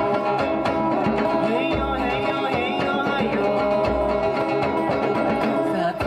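Live acoustic band music: strummed acoustic guitar and hand drums under a singing voice.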